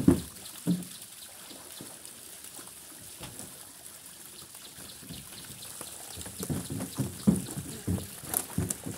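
Water trickling and splashing, with two loud thumps at the start and a run of knocks and thuds in the last three seconds as fish and baskets are handled.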